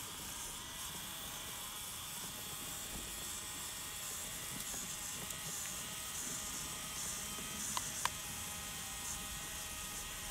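The small electric drive motor and gearbox of an RC crawler run with a steady buzzing whine as it drives through shallow water towing a trailer. Two short clicks come about eight seconds in.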